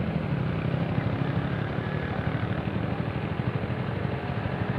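Motorcycle engine idling steadily at close range, a low rumble made of fast, even pulses.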